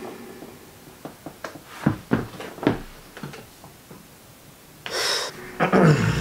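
Soft clicks and breaths in a small room, then a short sharp rush of breath about five seconds in.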